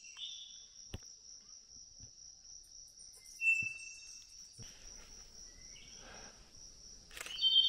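Steady high-pitched insect drone, like crickets, with a few brief bird chirps over it.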